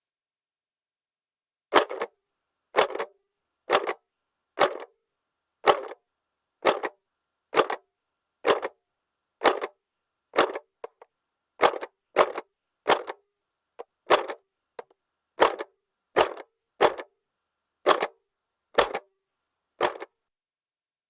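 Plastic mechanism of a 1975 Tomy owl toy clock clicking as it is worked by hand: about twenty sharp clicks, roughly one a second, a few in quick pairs.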